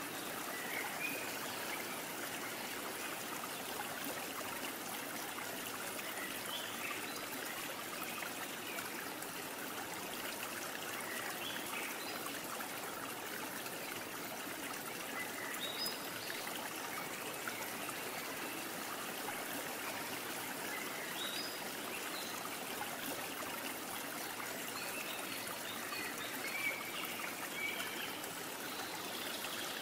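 Steady trickling, flowing water, like a small stream, with small scattered higher blips over the top.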